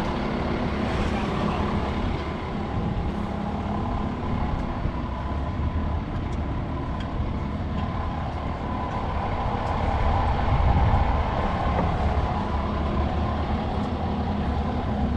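A vehicle engine running steadily, a constant drone with a low hum and a higher steady tone.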